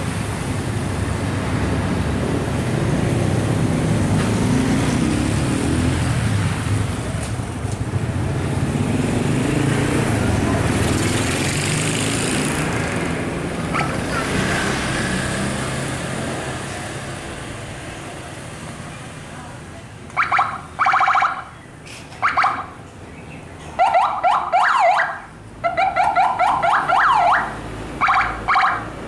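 Tour coaches' diesel engines rumbling past, swelling and then fading out about two-thirds of the way in. Telolet musical bus horns then play five or six short multi-note melodies in quick bursts, each a second or two long.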